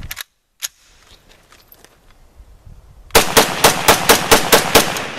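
A rapid burst of about nine loud, sharp bangs, about five a second, like machine-gun fire, starting about three seconds in and giving way to a steady rushing noise; a few faint clicks come before it.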